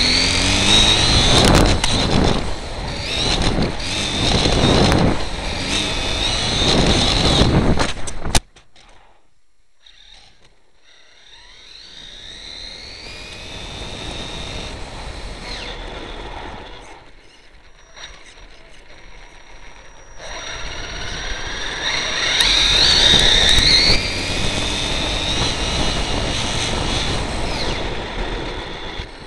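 HPI E-Firestorm Flux electric RC truck driving hard, heard from a camera on board: the brushless motor whines, rising and falling in pitch with the throttle, over road noise. About eight seconds in the sound cuts off suddenly and stays much quieter until it builds again about twenty seconds in.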